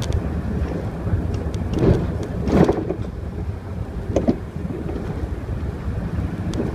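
Mercedes city bus driving slowly along a street, heard on board: a steady low engine and road rumble with light rattles and clicks, and a few louder bumps, the loudest about two and a half seconds in.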